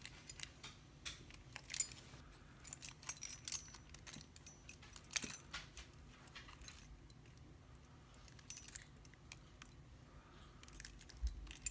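Metal keys jingling and clicking against a small lock as they are handled and tried in its keyway: irregular light metallic clicks and jingles.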